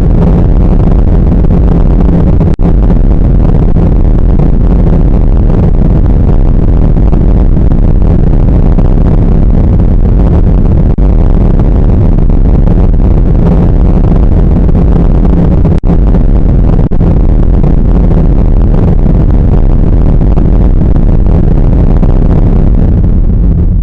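Rocket launching: a loud, steady, low rumble from its engines, with no pauses.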